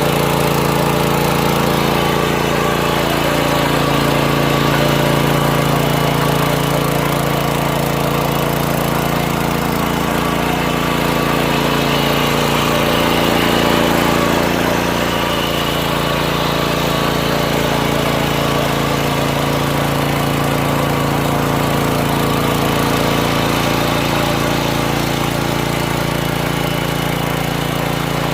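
Mini tiller's small engine running steadily as it ploughs the soil, its pitch wavering briefly about halfway through.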